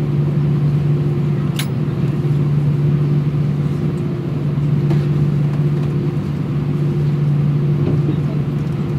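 Steady low hum of an Airbus A320's engines at idle, heard inside the cabin as the jet taxis slowly to the gate. A short click about one and a half seconds in.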